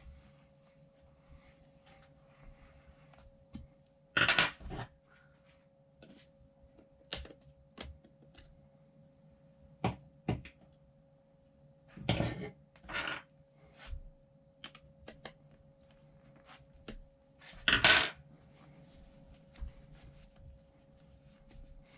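Metal parts and tools of a suspension seatpost clinking and knocking now and then as it is unscrewed and taken apart, the loudest knocks about four, twelve and eighteen seconds in, over a faint steady hum.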